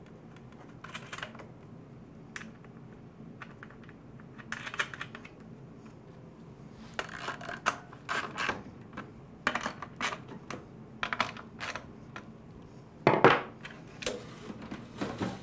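Hand tools and small metal parts being handled and set down on a wooden workbench: scattered clicks and clinks, busier from about halfway, with the loudest clatter near the end.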